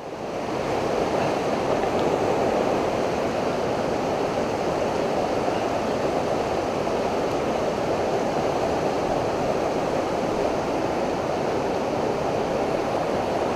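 Rushing creek water running through small rapids, a steady, even rush.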